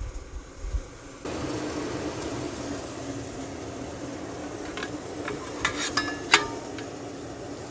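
Steak sizzling in a covered cast-iron pan, a steady hiss that sets in about a second in. Near the end come a few sharp clinks of plates being taken down from a cabinet, the loudest about six seconds in.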